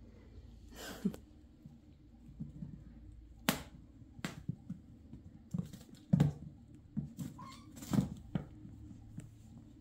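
Bengal kittens pouncing and scampering on a hard floor after a feather wand toy: several sharp taps and soft thumps at uneven intervals.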